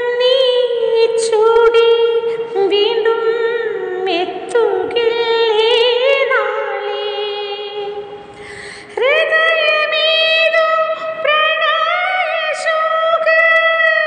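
A woman singing solo, holding long notes with vibrato, with a quick breath about eight and a half seconds in.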